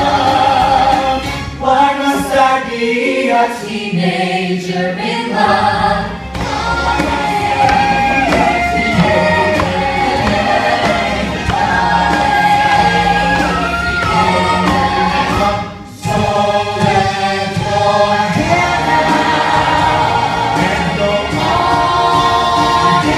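A live stage-musical number: several voices singing together in harmony over backing music, with a brief drop in loudness about two-thirds of the way through.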